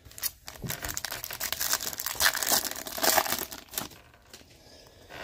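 The plastic wrapper of a 2022 Topps Series One baseball card pack being torn open and crinkled: a dense crackling rustle lasting about four seconds, loudest in the middle, then dying down.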